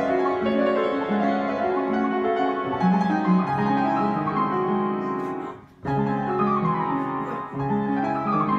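Upright piano being played: a piece of held chords and melody, with a brief break just past halfway, after which it picks up again with quick falling runs in the upper notes.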